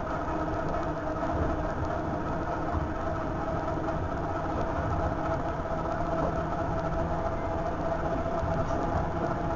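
The inside of a moving electric commuter train carriage: a steady running rumble with a constant hum running underneath, the train travelling at an even speed.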